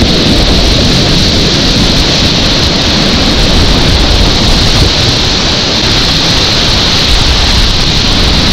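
Whitewater rapids of a fast alpine river rushing and splashing around a kayak close to the microphone, a loud, steady noise with no let-up.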